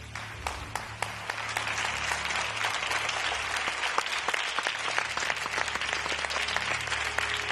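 Audience applause: dense, steady clapping that starts at once and keeps going, with a low steady hum beneath it.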